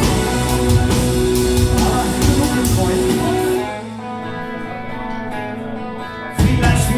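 Live band playing a pop-rock song with guitar and drum kit. About three and a half seconds in, the drums drop out and held guitar notes carry on more quietly. The full band crashes back in near the end.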